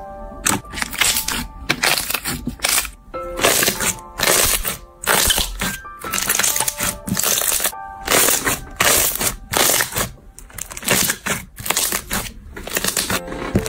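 Slime being squeezed and pressed by hand, a quick run of crackling, crunchy squishes about one or two a second, over soft background music.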